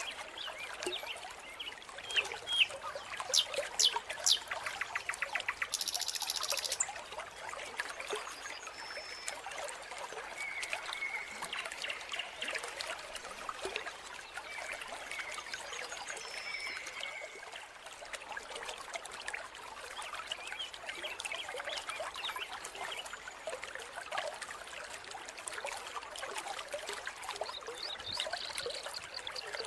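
Mountain stream water trickling and splashing steadily, with a few short animal calls over it, including a brief buzzy trill about six seconds in.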